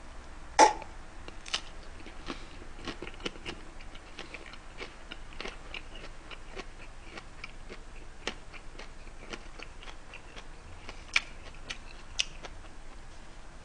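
Chewing a whole raw green chili pepper close to the microphone: scattered crisp crunches and wet mouth clicks, the sharpest about half a second in.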